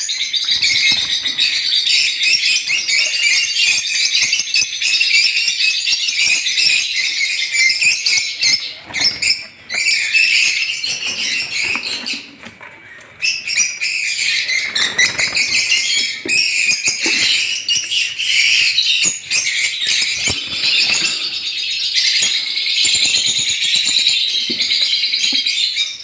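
A roomful of lovebirds in breeding cages chattering, a dense, continuous mass of shrill chirps. It thins briefly about twelve seconds in.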